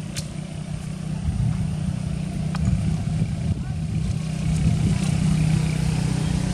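A steady low engine-like hum, like a motor running nearby, that grows a little louder about a second in, with a few faint clicks over it.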